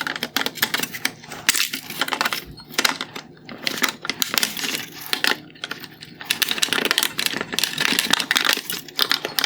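Plastic mounting-tab clips of a halogen headlight's projector clicking, cracking and scraping as they are pried and released by hand and tool, in a dense run of irregular clicks.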